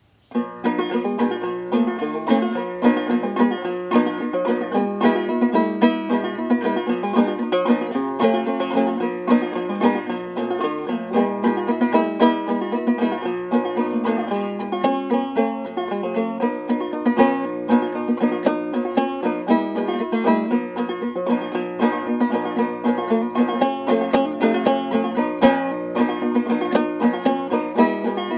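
Solo banjo played clawhammer style: a quick run of plucked notes, each with a sharp attack, carrying a marching-song melody at a steady tempo. The playing starts about half a second in.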